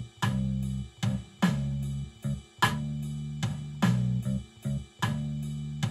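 Akai MPC One playing a slow 12-bar blues loop in G. A programmed drum beat lands a heavy hit about every 1.2 seconds, under a bass line being played in live on the pads, its notes changing every second or so.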